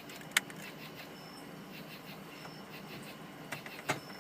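Two sharp clicks, one just after the start and one near the end, as the repaired 4x4 dash switch is handled and hooked back up, over a faint steady background with a short high chirp repeating about once a second.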